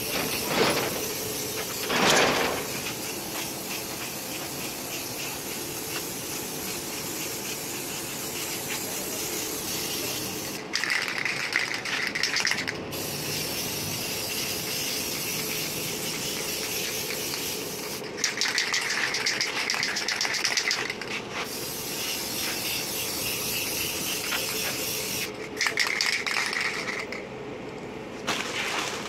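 Paint spraying onto a chest freezer's metal top: a steady hiss of spray that gets louder and brighter for a couple of seconds three times.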